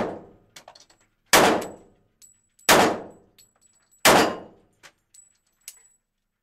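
Smith & Wesson E-Series 1911 pistol firing three shots about 1.4 s apart in a small concrete indoor range, opening on the echoing tail of a shot just before. Light metallic tinkles of ejected brass fall between and after the shots. On the last round the slide fails to lock back, the fault the owner is troubleshooting and suspects may lie with the factory magazines.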